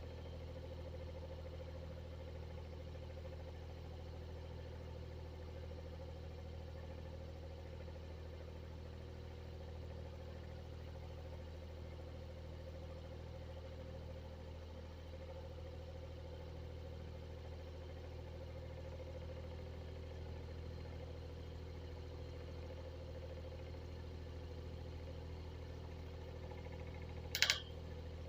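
Exhaust fan running steadily: an even low hum with a steady higher tone over it. Near the end a single brief sharp click cuts in, the loudest sound.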